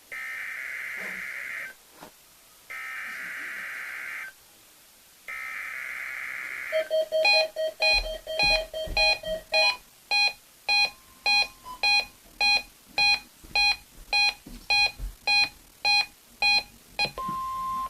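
NOAA Weather Radio SAME header for the weekly test: three short bursts of screechy digital data. Then a weather radio receiver's alert beeping, first in a quick run, then about two beeps a second. A short steady tone sounds near the end.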